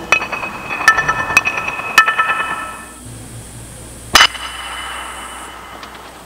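Bright ringing clinks, like struck glass or metal: four sharp strikes in the first two seconds, each ringing on with several high tones, then one more strike about four seconds in.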